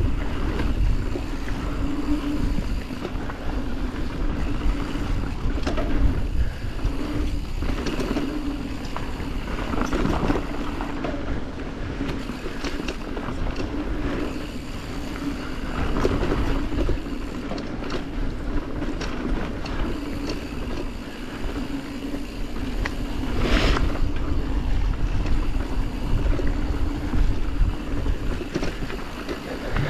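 Yeti SB140 mountain bike riding a dirt trail: wind rushing over the action camera's microphone over a steady rumble of tyres on dirt, with short knocks and rattles from the bike over bumps, the sharpest about 23 seconds in.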